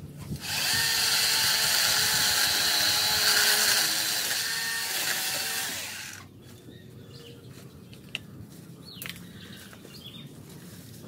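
Worx WG368E 40V cordless electric chainsaw running with a high whine as it cuts into branches, then stopping abruptly about six seconds in. A couple of faint clicks follow.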